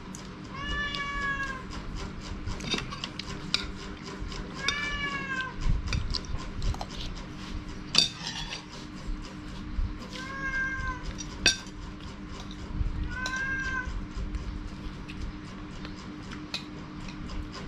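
A domestic cat meowing four times, each call about a second long and arching up then down in pitch, with a spoon clinking on a plate between the calls.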